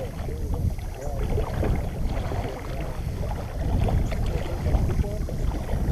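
Irregular sloshing and splashing of river water around a person wading waist-deep.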